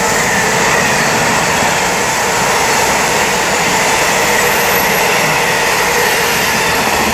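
Intermodal container freight train's wagons rolling past on the main line: a loud, steady rush of steel wheels on the rails, with a faint steady whine.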